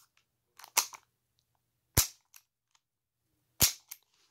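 Sharp metallic clicks of a Crosman CO2 revolver's action being worked: two loud snaps about a second and a half apart, with a smaller one before them and faint ticks between.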